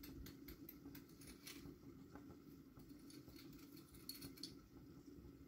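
Faint, scattered taps and rattles of a salt shaker being shaken over a cup, the salt inside caked hard, over a low steady hum.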